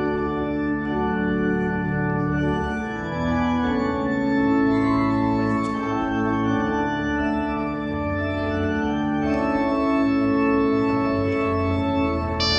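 Organ processional music: slow, held chords that change every second or two. Right at the end the sound changes abruptly to a brighter tone.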